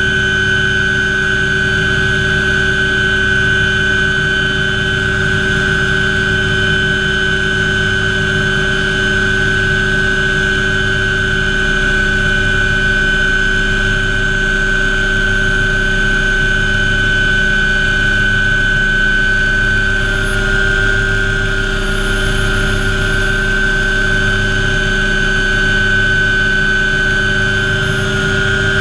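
MD500 helicopter's turbine engine and rotor running steadily in flight, heard from inside the cockpit: a constant high whine over a low, faintly pulsing drone.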